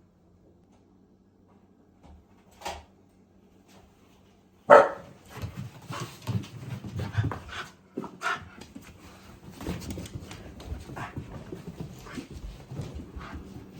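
Shiba Inu vocalising excitedly: after a brief sound near the third second, a loud sudden sound about five seconds in starts a run of short, irregular dog noises that goes on to the end.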